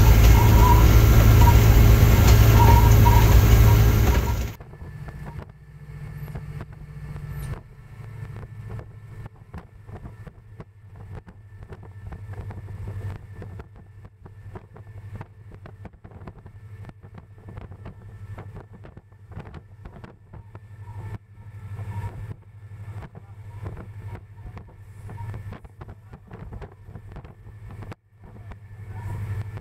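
EMD GT36HCW diesel locomotive (16-cylinder two-stroke EMD 645 engine) heard loud from inside its cab while under way, cutting off suddenly about four seconds in. After that, a much quieter steady low hum with many short crackles.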